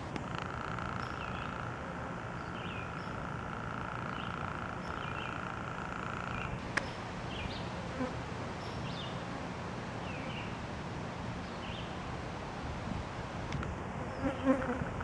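Outdoor ambience: a steady, high, insect-like buzz that stops about six seconds in, with short high chirps repeating about once a second and a low steady hum underneath. A single sharp click comes about seven seconds in.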